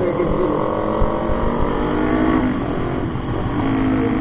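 Motorcycle engine running under way, its pitch shifting up and down as the throttle and revs change.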